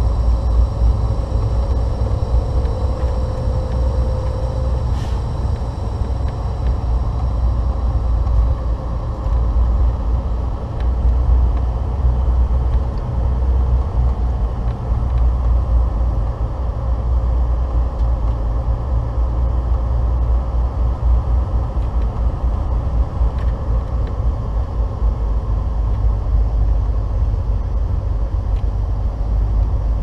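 A 2015 Volvo 670 semi truck driving, heard from inside the cab as a steady low rumble of engine and road noise.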